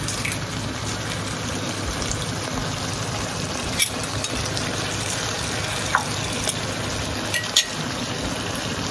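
Chicken frying in a wok on a gas stove: a steady sizzling hiss, with a few small pops.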